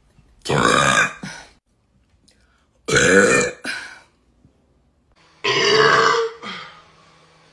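A person burping loudly on purpose: three long burps of about a second each, a couple of seconds apart, each ending in a brief shorter belch.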